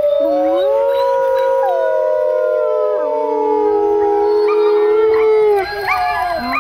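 Wolves howling in chorus, with several long howls overlapping and gliding slowly in pitch. Among them is a man's imitation howl through cupped hands. Near the end the howls break into shorter, wavering calls.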